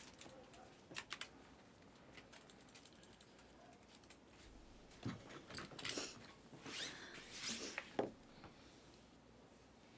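Panini Select basketball trading cards being handled and stacked by hand: faint scattered taps and slides of card stock, busiest from about five to eight seconds in.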